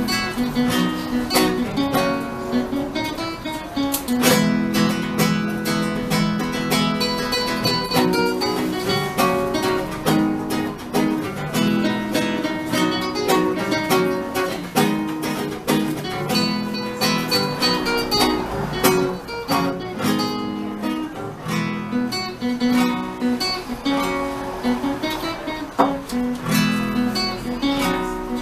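Music led by acoustic guitar, plucked and strummed, playing without a break.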